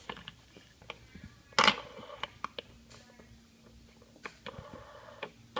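Fidget spinners being handled and set down on a hard surface: scattered light clicks and one sharper metallic clink about one and a half seconds in.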